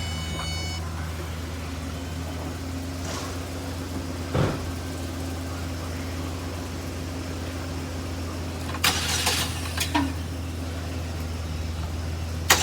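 2007 Pontiac G6's 2.4 L four-cylinder engine idling steadily, now that a jumper wire has restored the missing ground to the transmission control module. A few short clatters come about nine to ten seconds in.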